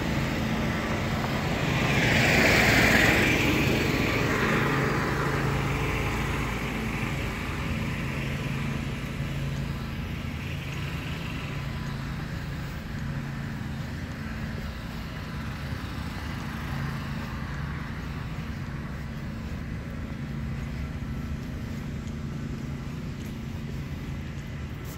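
Small engine of a lawn mower running with a steady hum, loudest about two to three seconds in and then slowly fading.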